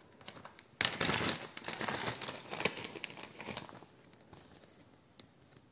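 Clear plastic bag holding a wax melt crinkling and rustling as it is handled and opened. It starts abruptly about a second in, goes on densely for about three seconds with many quick crackles, then dies away.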